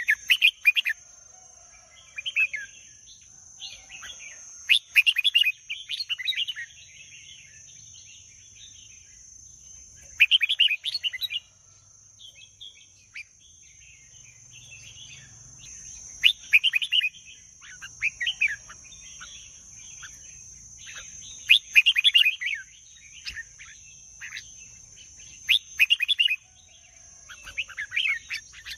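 Red-whiskered bulbul singing short phrases, one every few seconds, with a steady high-pitched whine running underneath.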